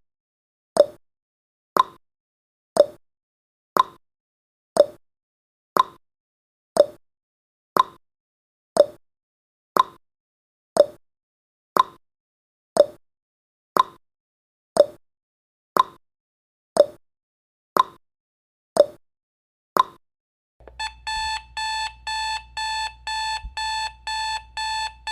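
Countdown timer sound effect: a clock tick once a second, alternating between a higher and a lower tick, for about twenty seconds. Then an alarm-clock beeping starts as the timer reaches zero, a rapid, repeating electronic beep.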